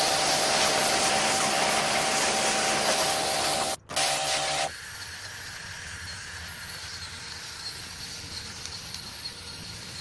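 Pressure washer spraying water onto a car's floor carpet: a loud steady hiss over the machine's steady hum. It cuts out briefly just before four seconds, then stops abruptly about a second later, leaving a quieter steady hiss with a thin high tone.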